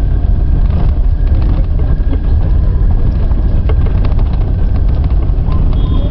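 A moving vehicle's steady low rumble, heard from on board, with scattered light clicks and rattles.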